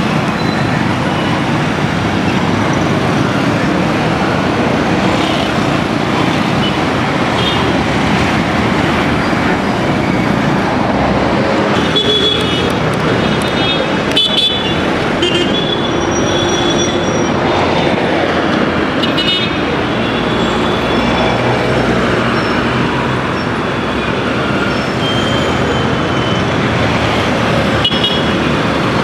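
Busy city-street traffic: motorcycle and car engines running in a steady din, with several short horn toots in the middle and once near the end.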